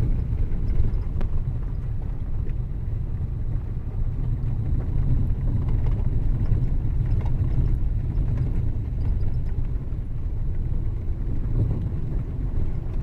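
Vehicle driving slowly along a rough dirt road, a steady low rumble.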